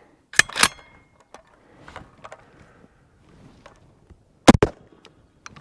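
Metallic clicks of a Sterling Arms R18 .223 semi-automatic rifle being loaded with a Cross Industries magazine, then, about four and a half seconds in, a loud double clack of its action closing. The bolt is catching on the feed ramp, so the magazine is not feeding properly.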